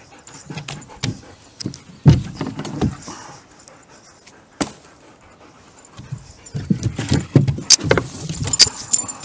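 A dog moving close against the microphone, brushing it in irregular bursts that are busiest near the end, with light metallic jingling.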